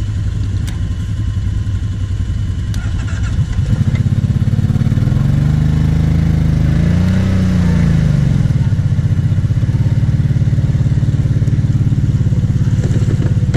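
Kawasaki Brute Force 750 ATV's V-twin engine running. About four seconds in it picks up and gets louder, is revved up and back down in the middle, then holds at a higher steady speed. It is being kept alive against water in the exhaust, which gives it too much back pressure and makes it die as soon as it is let back to idle.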